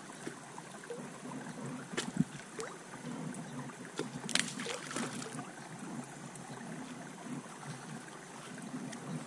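Steady creek-side background noise with a few small knocks, and a brief splash-like noise about four and a half seconds in.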